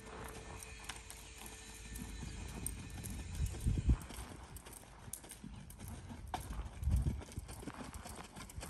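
Hoofbeats of a ridden horse moving around a sand arena, soft thuds on the loose footing, with two louder low rumbles about three and a half and seven seconds in.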